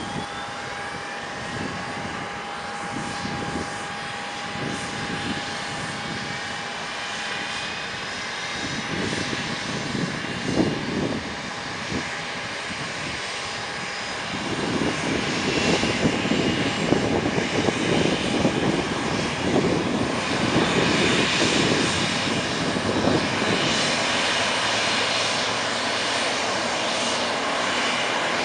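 A parked Boeing 737's turbines whine steadily, with higher whines slowly climbing in pitch. The sound grows louder about halfway through.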